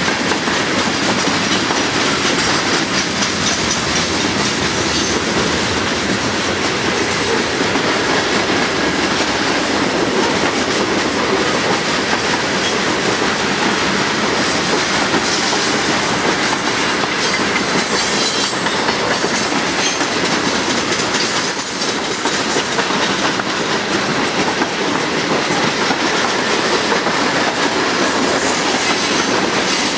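Freight train of tank cars and covered hoppers rolling past close by: a steady rumble and rattle, with the wheels clicking over the rails.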